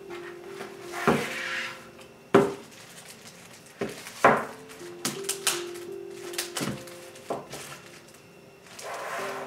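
Soft background music with held notes, over handling sounds: a frosted plastic bag crinkling and several sharp taps and knocks of items set down on a table, the loudest in the first half.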